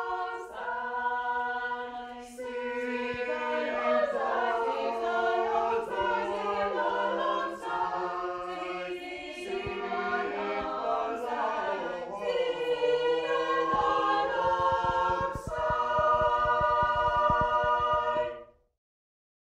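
Small mixed chamber choir, women's and men's voices, singing a cappella in several parts with long held chords. The singing cuts off abruptly near the end.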